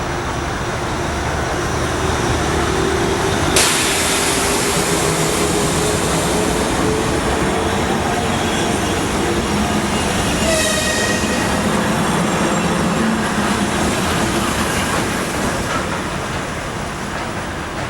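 Freight train wagons rolling past at speed, a steady loud rumble of wheels on rail with a sharp bang about three and a half seconds in and a brief high wheel squeal about ten seconds in.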